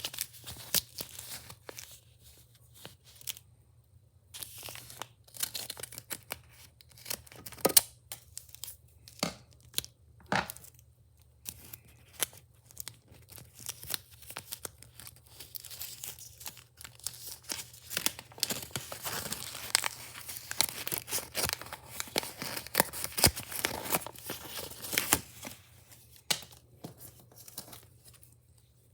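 Wrapping being torn open and crinkled by hand: irregular rips, rustles and crackles, busiest in the second half.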